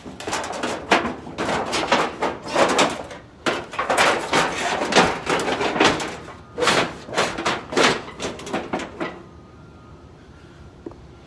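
Scrap being handled and loaded: a dense run of clattering knocks, bangs and scrapes that stops about nine seconds in.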